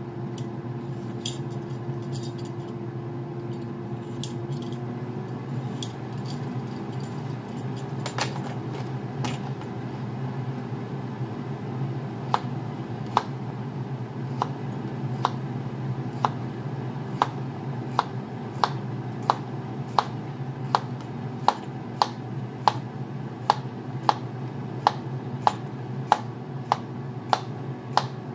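A kitchen knife slicing a cucumber on a plastic cutting board. A few scattered clicks come first, then from about halfway through each cut lands as a sharp tap on the board, about three cuts every two seconds in an even rhythm.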